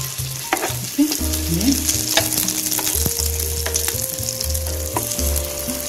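Noodle kabab patties sizzling steadily as they shallow-fry in hot oil in a flat pan.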